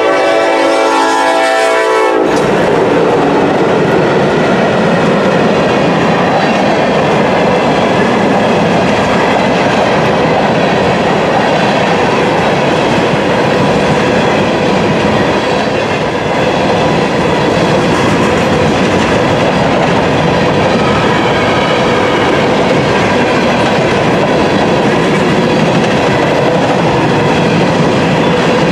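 Horn of a Norfolk Southern EMD SD70ACE diesel locomotive sounding as it passes, cutting off about two seconds in. Then a long string of covered hopper cars rolls steadily past, with the running noise of steel wheels on the rails.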